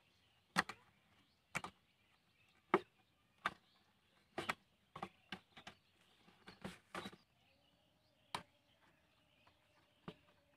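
Thin plastic bottle clicking and crackling as it is handled and pressed by the fingers, a dozen or so sharp irregular clicks with short gaps between them.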